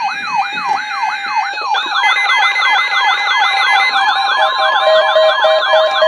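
Several NOAA Weather Radio receivers sounding their alert alarms at once, set off by the weekly required test: overlapping rising and falling siren wails with steady tones under them, joined about four seconds in by a rapid pulsing beep.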